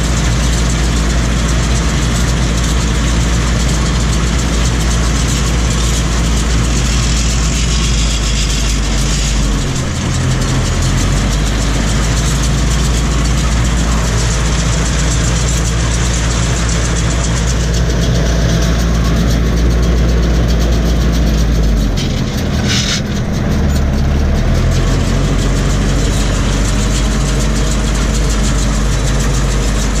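Tractor engine running steadily, heard from inside the cab while it pulls and drives a SIPMA PS 1312 baler baling hay. The engine note dips briefly twice, about a third of the way in and again after about three-quarters, with a short high sound during the second dip.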